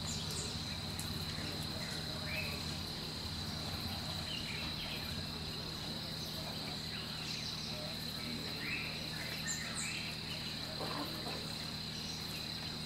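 Steady, high-pitched drone of a forest insect chorus, with scattered short, faint chirps over it and a low steady hum beneath.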